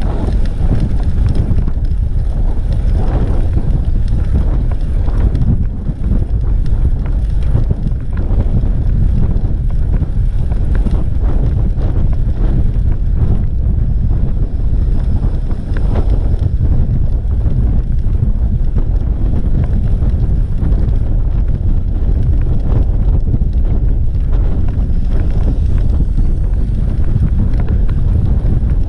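Wind buffeting the microphone of a camera on a road bicycle riding at speed: a steady, loud low rumble.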